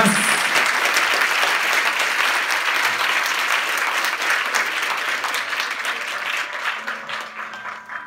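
A hall full of people applauding at the end of a talk: dense, steady clapping that slowly thins out and dies away near the end.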